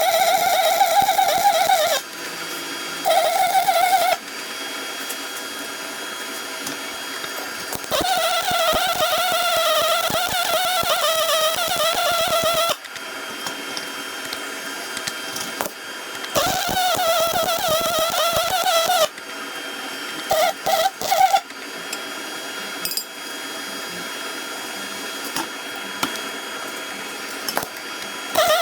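Pulsed MIG welding arc buzzing in bursts of a few seconds, stopping and restarting several times, its pitch wavering. A quieter steady hum fills the gaps between bursts.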